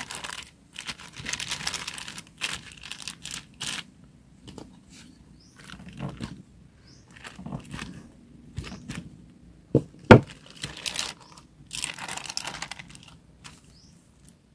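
Thin clear plastic sheet crinkling and rustling in irregular bursts as it is peeled back and laid over a flattened banana. A single sharp knock about ten seconds in.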